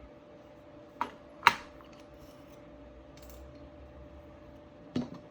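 Light clicks and taps of small metal lock parts being handled while the lock is taken apart: two close together about a second in, the second louder, and one more near the end.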